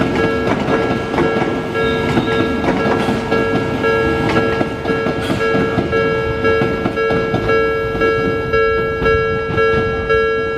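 Japanese level-crossing warning bell ringing in an even, repeating electronic ding while an Odakyu Line electric train passes over the crossing, its wheels clattering over the rail joints.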